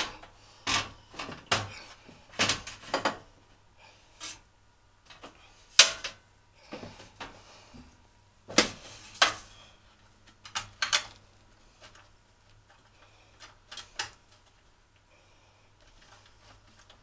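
Housing panels of a kerosene forced-air heater being handled and fitted together: an irregular run of clicks, knocks and scrapes as the top shell is seated over the rear fan guard, the sharpest knock about six seconds in.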